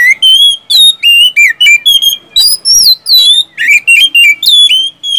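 Oriental magpie-robin singing in full voice: a rapid string of loud, clear whistled notes, many sliding up or down in pitch, broken by only short gaps.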